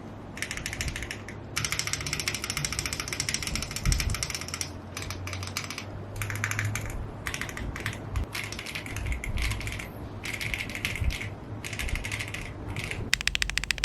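Typing on a foamless Monsgeek M7W aluminium mechanical keyboard with Everglide Wild Pansy tactile switches and PBT keycaps: runs of quick, clacky keystrokes broken by short pauses. Near the end the keystrokes come in a very fast, even run.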